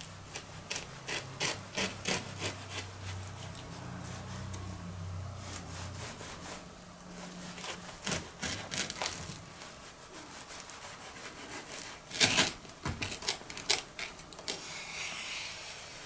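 Knife sawing through a crisp cheese-and-tomato toast: groups of short, scraping strokes with pauses between them.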